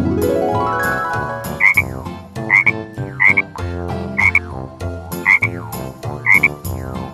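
Frog croaking repeatedly, about once a second, after a rising glide in the first second and a half.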